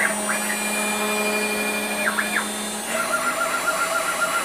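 6040 CNC router's spindle running steadily at about 12,000–15,000 RPM, with the stepper motors whining as the head travels down to the ABS sheet. About three seconds in a wavering, pulsing tone starts as the single-flute end mill moves into the cut.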